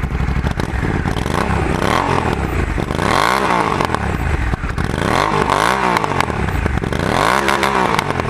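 Honda Africa Twin CRF1100's parallel-twin engine revved repeatedly, its pitch rising and falling back about every two seconds.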